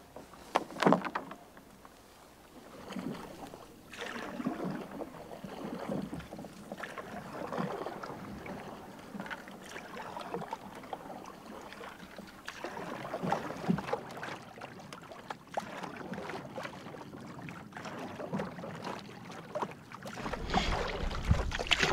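Canoe paddle strokes: the paddle dipping and pulling through the water every second or two. A sharp knock comes about a second in, and wind buffets the microphone near the end.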